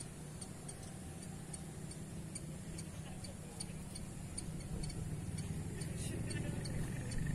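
Wind rumbling on the microphone, growing louder towards the end, with a faint, even ticking about three times a second over it.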